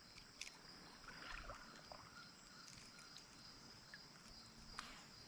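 Near silence: quiet riverside ambience with a faint steady high-pitched insect buzz and a few soft clicks.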